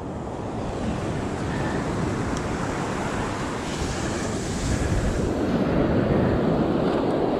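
Surf breaking on the beach with wind buffeting the microphone: a steady, noisy rush that grows gradually louder.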